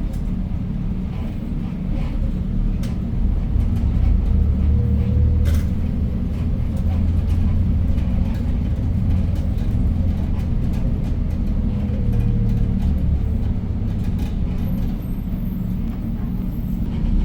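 Hyundai New Super Aerocity city bus driving, its CNG C6AF engine giving a steady low rumble that swells and eases several times, heard from inside the bus.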